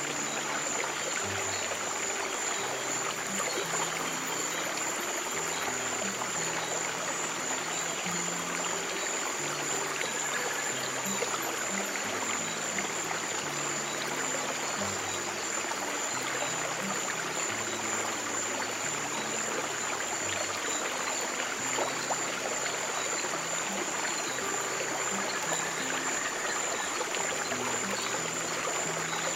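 Steady flowing stream water with soft, slow piano notes underneath and a constant high-pitched tone held throughout.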